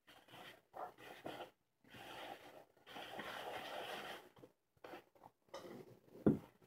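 Hands kneading and rubbing softened margarine and chocolate flan powder in a plastic mixing bowl: soft, intermittent rustling and scraping. A single low knock comes near the end.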